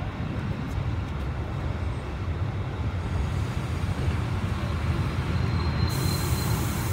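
FS Class 625 steam locomotive moving off along the track, a steady low rumble with a hiss coming in near the end.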